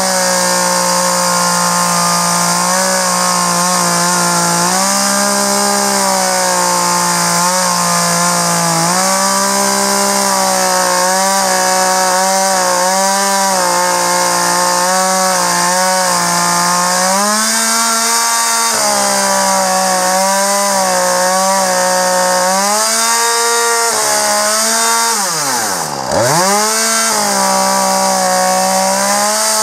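Two-stroke chainsaw cutting lengthwise through a log along a lumber cutting guide, running at full throttle with its pitch wavering as the chain works through the wood. About 25 seconds in, the engine dips sharply and revs back up.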